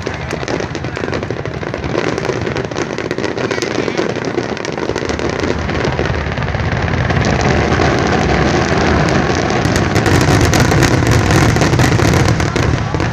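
Rapid-fire barrage of aerial fireworks: a dense, continuous string of cracks and bangs over a deep rumble, building in loudness before easing off near the end.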